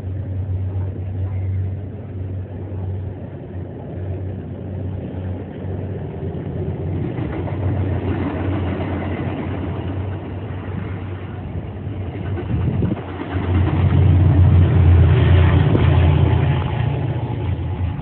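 MBTA commuter rail train passing with a steady low rumble of its diesel locomotive and wheels on the rails, growing louder about three-quarters of the way through.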